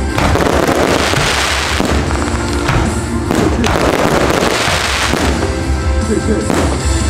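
Aerial firework shells bursting one after another, about once a second, each burst trailing off in a fizzing hiss, over loud music with a heavy bass.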